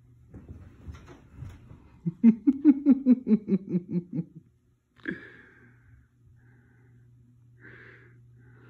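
A person laughing: a run of about a dozen short 'ha' pulses, about five a second, sinking a little in pitch, about two seconds in. A single sharp knock follows near the middle, then a couple of faint short rustles.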